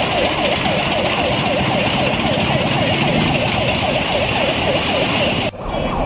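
Emergency vehicle siren in a fast yelp, its pitch sweeping up and down about three times a second over a steady rumble of noise. The sound drops out abruptly for a moment about five and a half seconds in, and the siren carries on straight after.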